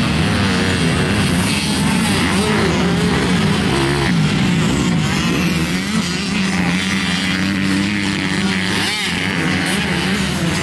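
Two-stroke 85 cc motocross bike engines running and revving continuously, the pitch rising and falling as the throttle works.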